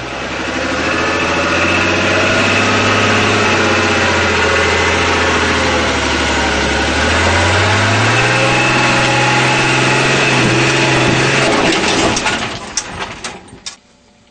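Unic 75 PC 4x4 fire truck's engine running loudly as the truck drives over rough off-road ground. The engine note steps up in pitch about halfway through. Near the end the sound falls away quickly, with a few sharp knocks.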